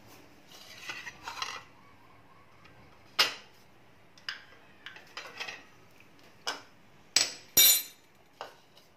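Kitchen utensils, a steel spoon and a plastic mixing bowl, being handled and set down on a countertop: soft rustling about a second in, then a string of sharp clinks and knocks, the two loudest close together near the end.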